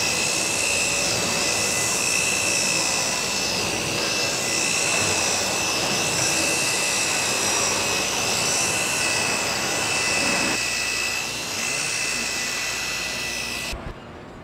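Loud, steady machine noise from a helicopter assembly floor: a dense hiss with a constant high-pitched whine, cutting off suddenly near the end.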